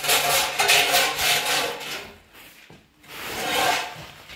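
Rasping, scraping strokes of something being rubbed or scraped hard. They run for about two seconds, pause briefly, then one more stroke follows near the end.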